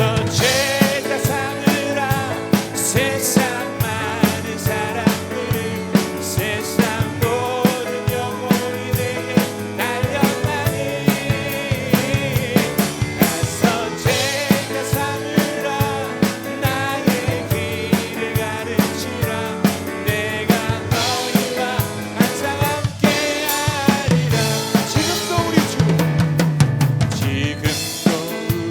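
Worship band music led by a drum kit: kick and snare keep a steady beat under held keyboard or guitar notes and a bass line.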